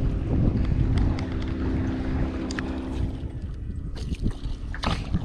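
Wind rumbling on the microphone, with a steady low hum that fades out about three and a half seconds in and a few light clicks of handling.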